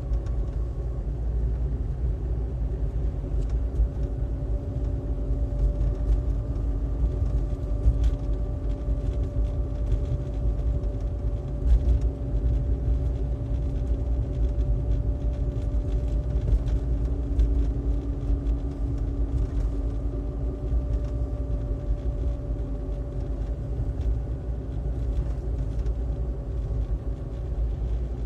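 Car engine and road noise while driving: a steady low rumble with an even engine hum that holds the same pitch, at a constant cruising speed.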